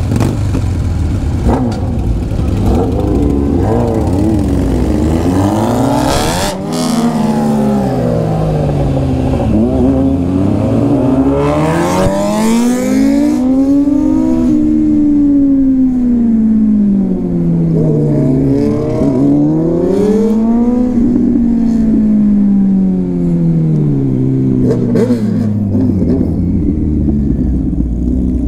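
Motorcycle engines under way, their pitch climbing and falling smoothly several times as they speed up and ease off. Wind rush is heavy for the first half and dies away about halfway through.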